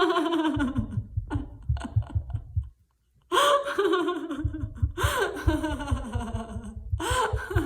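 A woman laughing heartily on purpose in a laughter-yoga exercise: four separate bouts of laughter, each falling in pitch, with a short pause about three seconds in. A dull, rapid low thudding runs under parts of it.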